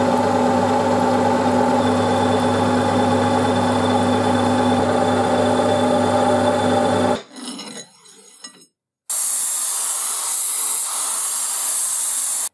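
An electric power tool's motor running at a steady speed, then switched off about 7 seconds in and dying away. After a short gap, a steady high hiss starts and holds.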